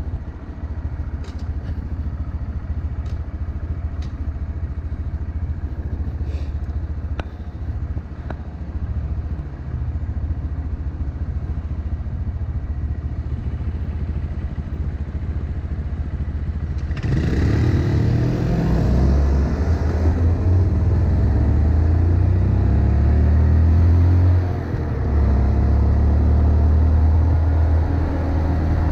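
Honda Monkey 125's single-cylinder four-stroke engine idling at a standstill, then pulling away about 17 seconds in. The engine note rises in steps as the bike speeds up to about 55 km/h, with a brief dip about 24 seconds in and wind noise building.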